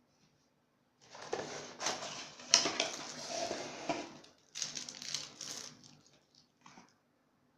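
Rustling handling noise with scattered clicks and small knocks, in two bursts with a brief pause between them.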